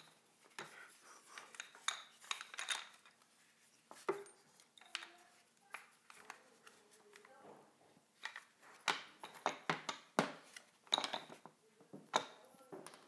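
Irregular clicks, knocks and clatter of the hard plastic-and-metal resistance unit of a Tacx Blue Matic bike trainer being handled and fitted against the trainer's metal frame.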